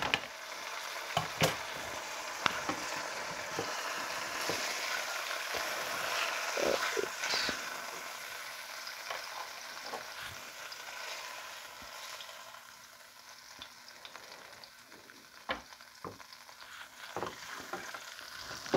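Cooking oil sizzling in a nonstick frying pan, with sharp taps of utensils against the pan here and there. The sizzle is strongest in the first half and dies down after about twelve seconds.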